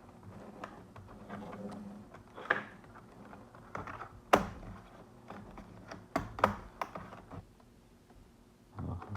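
Plastic clicks and knocks of a laptop being handled and reassembled, parts pressed and snapping into place. The sharpest click comes a little before halfway, and two more follow close together past the middle.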